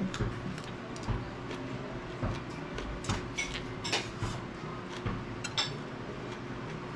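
Eating utensils clinking against dishes as a meal is eaten, in a series of scattered, irregular clicks.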